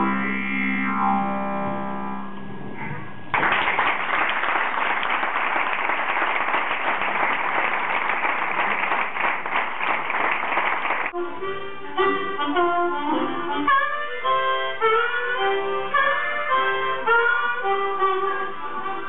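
Blues harmonica ending on a held, bending chord. A few seconds in, applause from the audience breaks in and runs for about eight seconds before cutting off abruptly, and then harmonica plays a quick melodic line of short notes.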